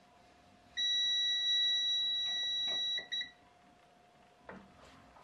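Handheld electronic stud finder sounding one steady high beep for about two seconds, then a short second beep, signalling that it has detected a stud behind the wall. A few light taps follow against the wall.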